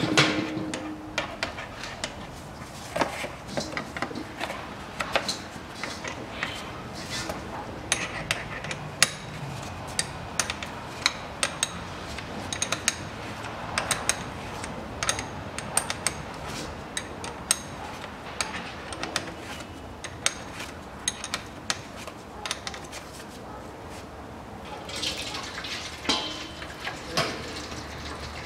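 Small metallic clicks and clinks of a 10 mm hex tool working the drain plug out of the ZF 6HP automatic transmission's oil pan, scattered irregularly. Near the end the transmission fluid begins to run out of the open drain hole.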